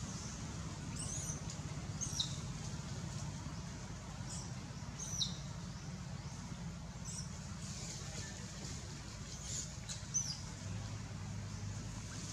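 Short, high-pitched animal chirps, about seven of them spaced out, each a quick falling squeak, over a steady low hum.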